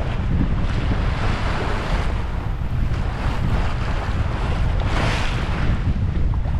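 Wind in about 20 knots buffeting the microphone with a steady low rumble, over water rushing and splashing along a sailboat's hull under sail. The wash swells twice, about two seconds in and again around five seconds.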